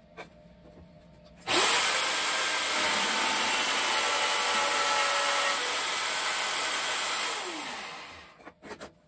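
Magnetic drill press motor starting up with a quick rising whine and running steadily while the bit bores into a wooden block. About six seconds later it shuts off and spins down with a falling whine. A few light knocks follow near the end.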